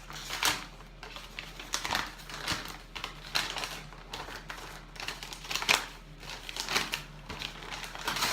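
Gift wrapping and packaging being opened by hand: irregular crinkling and rustling of paper with small clicks and knocks.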